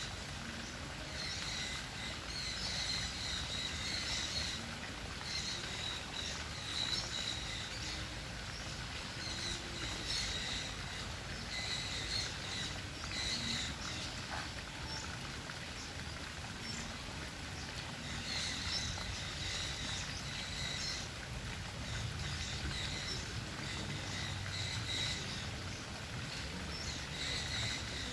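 Outdoor ambience: high chirping in short bursts every second or two, over a steady low rumble.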